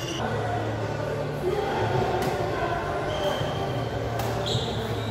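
Badminton hall ambience: a steady low hum with indistinct voices. Twice in the second half there are short high squeaks of sneakers on the court floor, along with faint taps of play.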